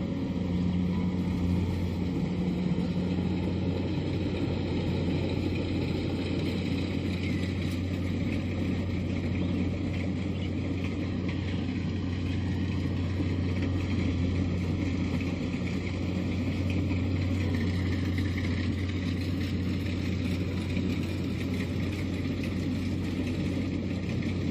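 Kubota DC-70 combine harvester's diesel engine and machinery running steadily with a constant low hum.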